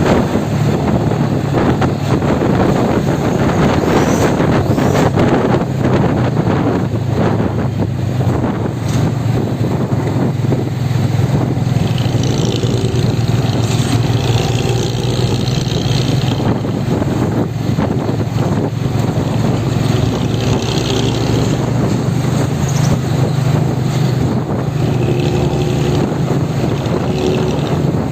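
Vehicle engine running steadily through an aftermarket exhaust, a deep even drone with no revving.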